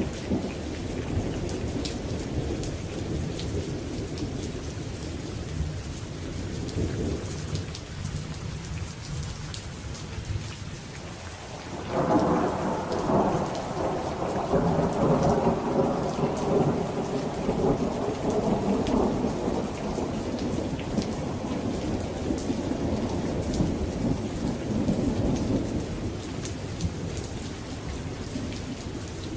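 Steady rain falling, with a low thunder rumble dying away over the first several seconds. About twelve seconds in, a sudden crack of thunder breaks and rolls on for more than ten seconds before fading back under the rain.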